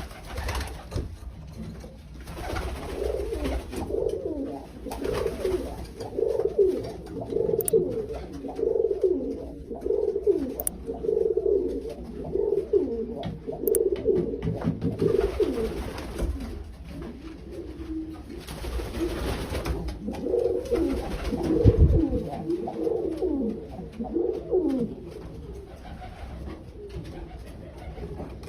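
Domestic pigeons cooing, many low coos repeating and overlapping one another, with a single brief low thump about two-thirds of the way through.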